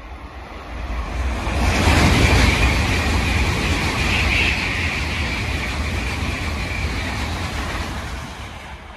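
N700-series Tokaido Shinkansen train running through a station on the through track without stopping: a rushing wheel and air noise with a low rumble that swells sharply about a second and a half in, holds loud for several seconds, and fades near the end.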